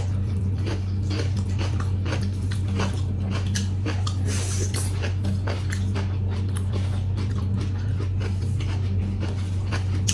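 A person chewing and biting food close to the microphone: many small irregular clicks and crunches, over a steady low electrical hum.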